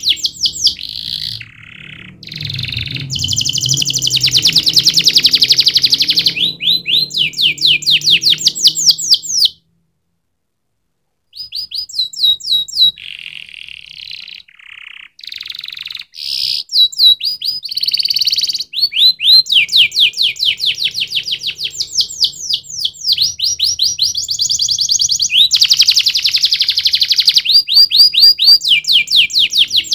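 Domestic canary singing: fast rolling trills of repeated downward-sweeping notes, alternating with denser trilled phrases. The song stops for about a second and a half around a third of the way in, then resumes.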